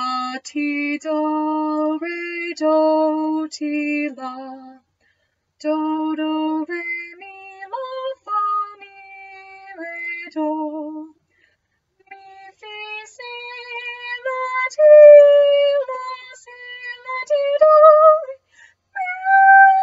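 A woman singing a melody unaccompanied in solfège syllables, held notes in phrases with two short breaks. The second half lies higher, and its high held notes are the loudest.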